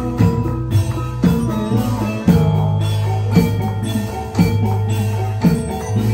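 Live band music for dance: a drum kit beating time over keyboard melody and a held bass, with a strong drum stroke about once a second.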